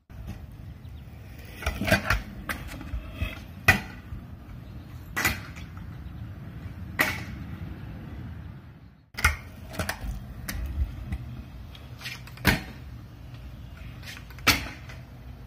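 Kick scooter wheels rolling on pavement, broken by sharp clacks of the deck and wheels hitting the ground as tricks are landed, about seven times. The sound cuts out briefly about halfway through.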